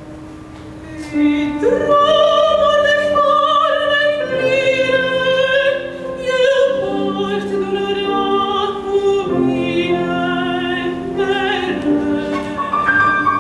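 A woman singing opera with a wide vibrato, accompanied by a grand piano. The piano sounds alone for the first second or so before the voice comes in strongly.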